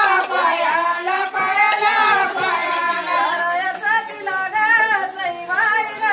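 Women singing a traditional Marathi jatyavarchi ovi (grinding-stone folk song) as a wedding song, unaccompanied, in long held and wavering notes.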